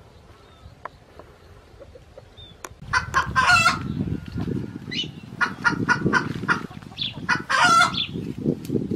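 Rooster calling: after a quiet start, two loud short calls about four seconds apart, the first about three seconds in and the second near the end, with short sharp clucks between them.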